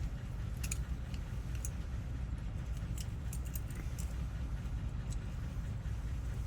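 Scattered light metallic clicks and clinks of keys and lock parts being handled, over a steady low hum.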